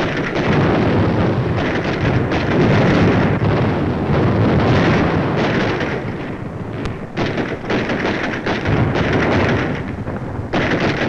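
Dense, continuous battle noise of musket and cannon fire with explosions, easing a little just past the middle before building again.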